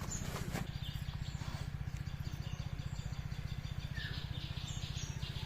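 Birds chirping here and there over a steady, low, fast-pulsing hum.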